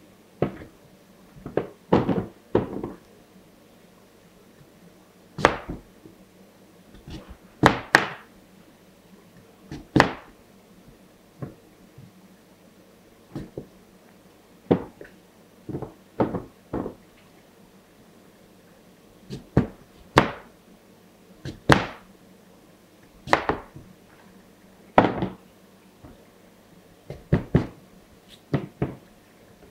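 Kitchen knife cutting through raw peeled yam and striking a plastic chopping board: sharp, irregular knocks, one every second or two.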